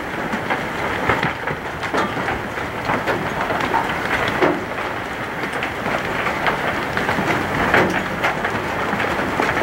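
Small hail mixed with rain falling: a steady patter with frequent sharp ticks of hailstones striking.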